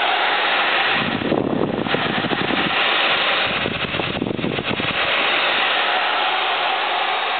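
Blower fan of a Sapphire Radeon HD 5870 graphics card running, a loud, steady rush of air. From about one second in to about five seconds in, an irregular low rumble sits under it.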